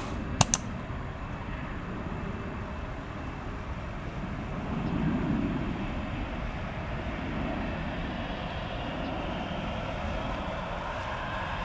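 Jet airliner engines rumbling steadily at a distance, with a swell about five seconds in. Two sharp clicks come just after the start.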